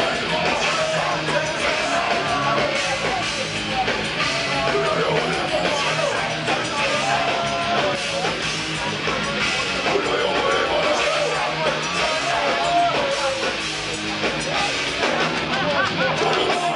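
Heavy metal band playing live at full volume, dense and steady, with distorted guitar, drums and yelled vocals, heard from among the crowd.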